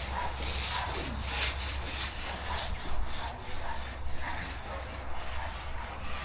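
Rasping strokes of a hand tool drawn back and forth over wet concrete, about one a second, over a steady low hum.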